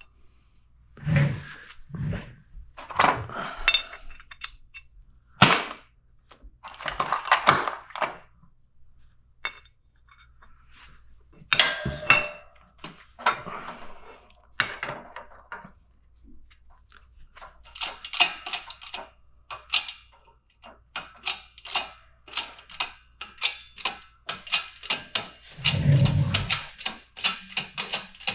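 Metal tools and parts being worked on a wheel bearing and knuckle job: scattered knocks and clinks, then in the second half a long run of quick, evenly spaced clicks, with one heavier thud near the end.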